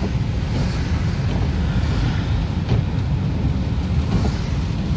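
Steady low rumble of a car driving, heard inside the cabin: tyre and road noise on wet asphalt over the engine. A faint knock comes about three seconds in.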